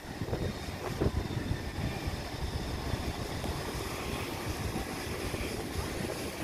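Vintage 'Red Rattler' electric train running along the platform as it comes in. There is a steady rumble of wheels on rails, with a single knock about a second in.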